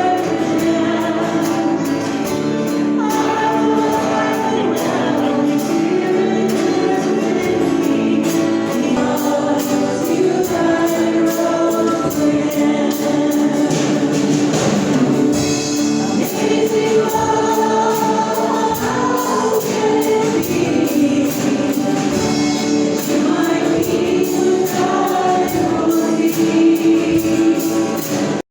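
A group of voices singing a Christian worship song with musical accompaniment and a steady beat.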